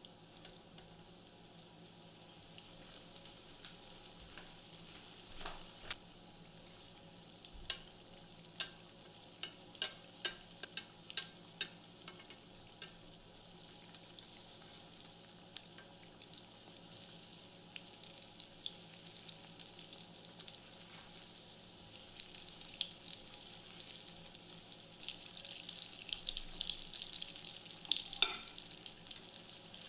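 Batter-coated potato fritters (batata vada) deep-frying in hot oil: a steady sizzle with many sharp crackles in the first half, the sizzle growing louder near the end.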